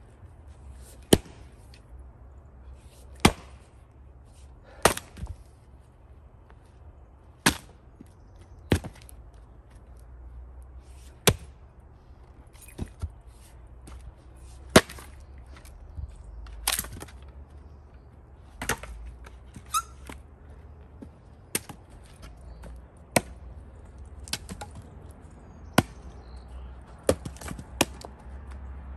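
Axe chopping firewood: a sharp chop into the wood about every two seconds, with lighter knocks and taps in between.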